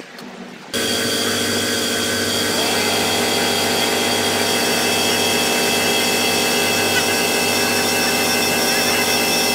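The motor of the air supply for inflatable lifting cushions starts abruptly about a second in and then runs at a steady, whining pitch as the cushions fill with air.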